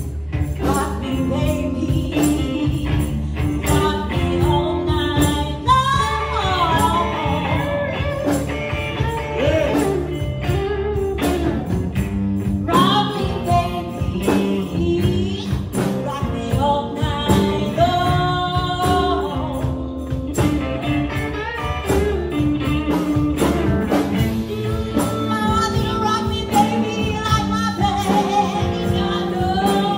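Live blues band playing: a woman singing over electric guitars, drums and a shaken tambourine.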